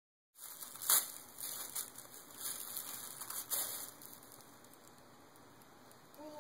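Sheets of paper crinkling and rustling as a baby's hands grab and crumple them, in several crackly bursts over the first four seconds, the loudest about a second in, then quieter. A baby's short voiced sound begins right at the end.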